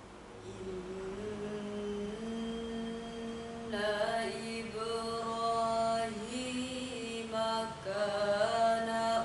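A girl's solo voice reciting the Quran in melodic tilawah style, beginning about half a second in with long held, ornamented notes. The melody steps up in pitch and grows louder about four seconds in.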